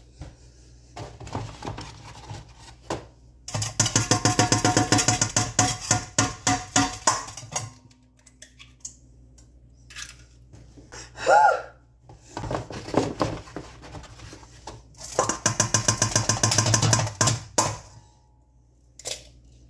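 Rapid knocking on a stainless steel mixing bowl, the bowl ringing under the strokes, in two runs of about four and three seconds. A short high vocal squeak, a tic, comes between them.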